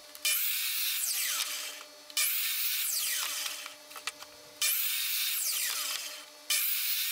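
Hitachi C10FCH2 10-inch compound miter saw crosscutting cedar fence pickets to length. Four cuts come about two seconds apart, each starting abruptly and tailing off.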